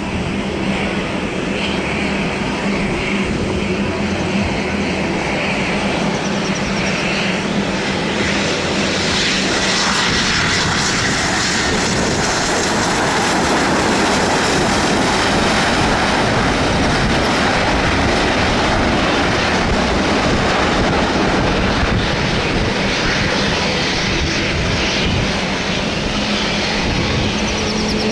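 Aircraft engines running loud and steady with a low hum beneath, the noise growing fuller about nine seconds in and then holding.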